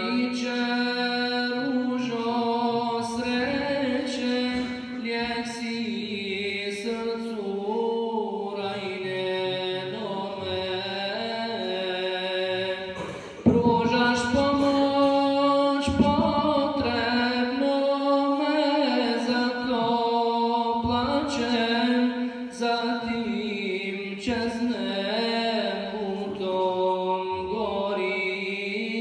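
Unaccompanied male chanting of an Islamic recitation in long, ornamented melodic phrases. About halfway through it breaks off briefly and then resumes louder.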